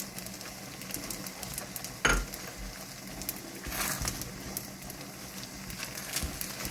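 Pasta in cheese sauce sizzling in a pan while being stirred, with small scraping clicks and a louder knock about two seconds in.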